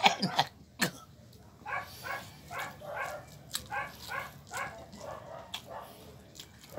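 A dog barking over and over, about two or three short barks a second, after two sharp clicks in the first second.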